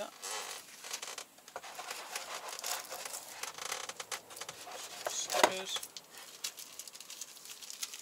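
Plastic packaging rustling and crinkling as small parts are handled and unwrapped, with scattered light clicks and one louder sharp crackle about five seconds in.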